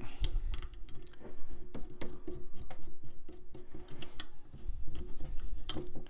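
Small irregular clicks and scrapes as a threaded adjustment bolt is turned by hand through a plastic doorbell-mount bracket.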